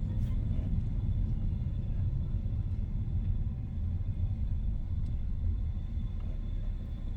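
Steady low rumble of a car driving along the road: engine and tyre noise.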